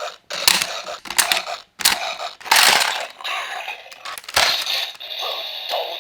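Metal O Medals being pushed one after another into the mouth slot of a CSM MedaGaburyu toy axe: a series of clicks and clacks of coin against plastic mechanism. Near the end the toy's electronic sound effect begins to play.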